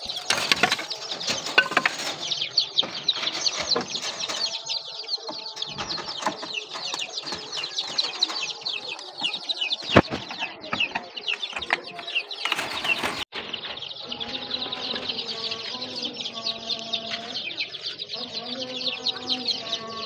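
Many small chicks cheeping continuously in a dense chatter of quick, high chirps. Scattered clicks and knocks come from hand tools on the wire mesh, with one sharp knock about halfway through.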